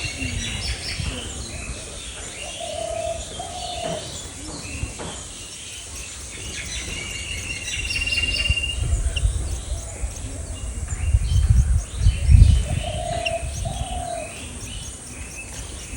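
Several wild birds chirping and calling in short, high notes, with a low two-note cooing call twice, typical of a dove. A low rumble swells in the second half.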